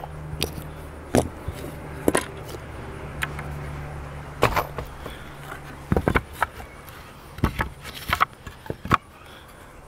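Wooden boards being handled on a work table: a scattered series of sharp knocks and clacks as pieces are picked up and set down. A steady low hum runs underneath for the first six seconds or so, then stops.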